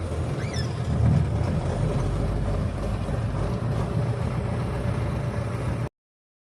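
KamAZ truck's diesel engine running steadily with a low rumble, the sound cutting off abruptly about six seconds in.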